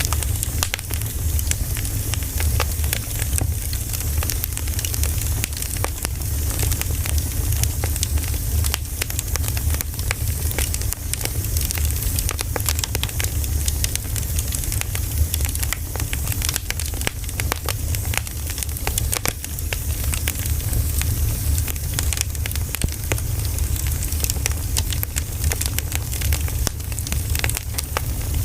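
Burning firewood crackling, with frequent irregular pops and snaps over a steady low rumble.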